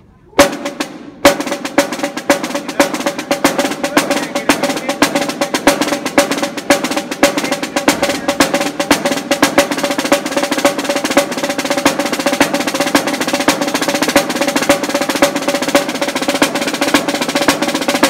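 Marching snare drum played in a fast rudimental solo: a few single hits, then dense rolls and rapid strokes over the ringing drum head, cutting off at the very end.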